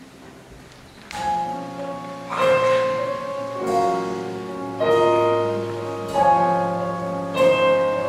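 Faint room sound for about a second, then an instrumental introduction starts: a sequence of ringing chords, a new one struck about every second and a quarter.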